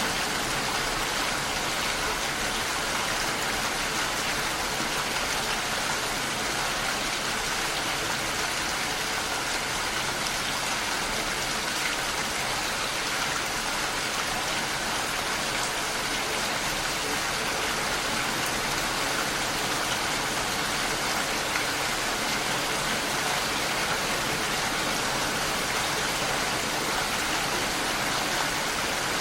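Steady, even rain falling, with no thunder.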